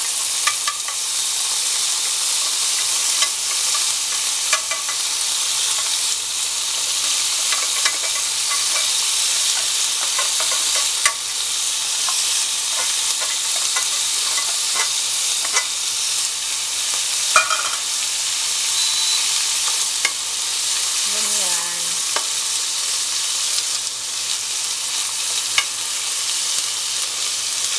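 Canned tuna and sliced onions sizzling in hot oil in a nonstick frying pan, steady throughout, with a spatula stirring and tapping against the pan now and then.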